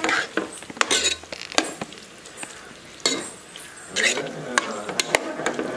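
A spatula stirs and scrapes vegetables in a non-stick pot, with sharp irregular clicks as it knocks against the pot over a light sizzle.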